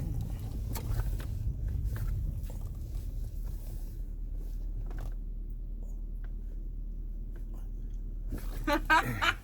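Car cabin noise while driving: a steady low road and engine rumble, with scattered light clicks and rustles in the first few seconds. A short, louder pitched sound comes near the end.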